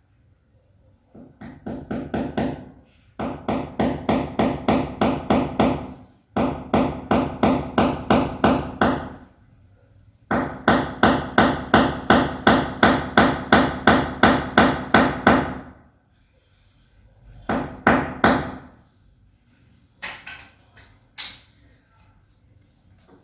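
Hammer blows in quick, even runs of about three to four strikes a second, with a faint metallic ring on each. There are four long runs with short pauses between them, then a few last separate strikes near the end.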